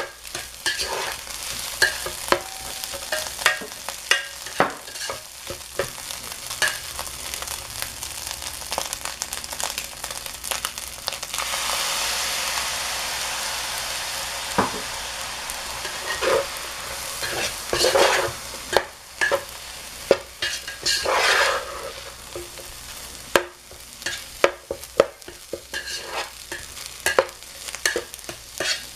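Fried rice sizzling in an electric hot pot while a metal spoon stirs and scrapes it around the pan, with frequent clicks and scrapes of the spoon on the pan. The sizzle swells louder for a few seconds near the middle.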